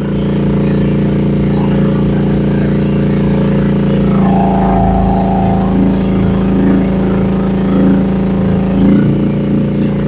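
Rippa R10 mini excavator's gasoline engine running steadily while the hydraulics are worked, with a higher tone joining for a couple of seconds about four seconds in.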